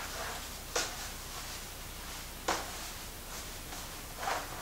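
Hands pressing and patting pizza dough on a floured metal pizza peel: three short taps, evenly spaced, over a faint room hiss.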